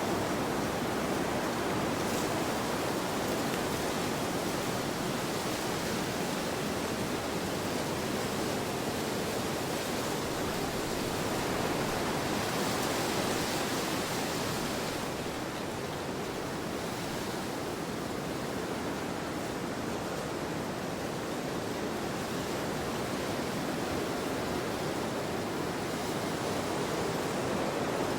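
Wind blowing steadily, an even rushing noise that swells and brightens a little in the middle.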